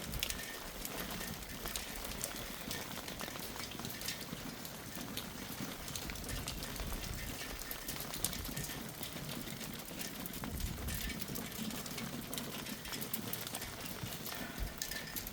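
Hailstones falling: a dense, steady patter of many small sharp clicks over a hiss.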